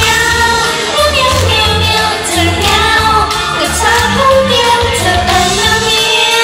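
Female idol singer singing into a microphone over a loud pop backing track with a steady bass beat.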